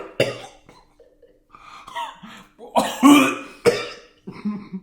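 A man coughing and gagging in several loud, rough bursts, the loudest about three seconds in: a gag reaction to a mouthful of seaweed-wrapped tuna rice ball that he finds nasty.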